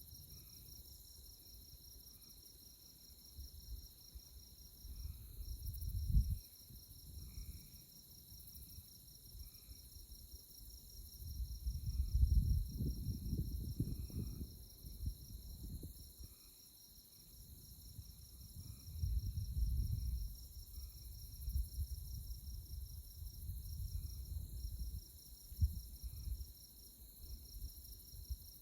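Night insects chirping in tallgrass prairie: a continuous, rapidly pulsing high trill over a steady high whine, with softer scattered chirps lower in pitch. Low rumbles swell and fade underneath, loudest about twelve to fifteen seconds in and again around twenty seconds.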